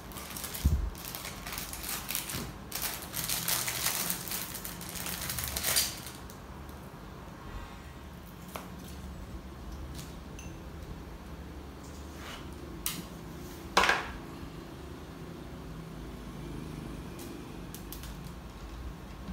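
Rustling and light metallic clinks as a new guitar string is handled and uncoiled from its paper packet, busiest for the first six seconds, then a few isolated clicks, the loudest about fourteen seconds in.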